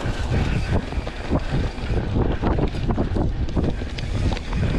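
Wind buffeting the microphone over the rumble of a mountain bike rolling along a bumpy dirt trail covered in dry leaves, with many small knocks and rattles from the bike over the rough ground.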